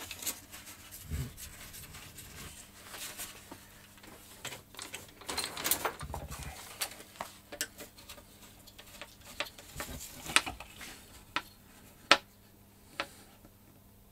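Handling noise from a carbon-fibre glider wing being set on its fuselage and screwed down with a small screwdriver: scattered clicks, taps and light rubbing, with a few sharper clicks in the second half.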